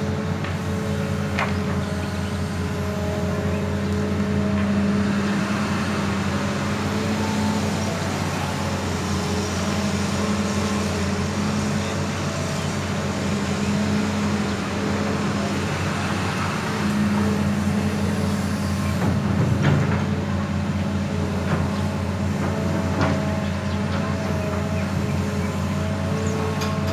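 Hitachi Zaxis 200 excavator's diesel engine running steadily under working load as the machine digs and swings, the engine note swelling at times. A few short knocks stand out above it.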